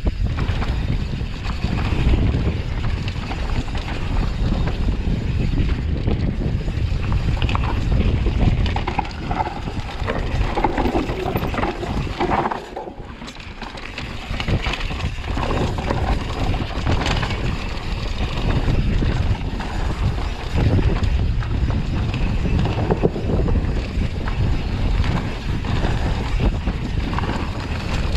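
Mountain bike descending a bikepark trail: wind buffeting the microphone, with rolling tyre noise and rattling from the bike. The noise drops briefly about twelve seconds in.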